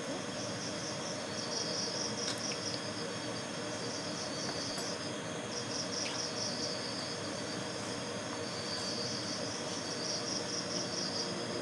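A cricket chirping in repeated trills a second or two long, high-pitched, over a steady low hiss, with a few faint clicks of a wooden spatula against a steel kadai.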